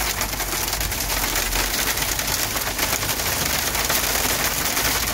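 Hail and rain drumming on a Jeep Wrangler's roof and windshield, heard from inside the cab as a dense, rapid patter of small hits over a steady hiss.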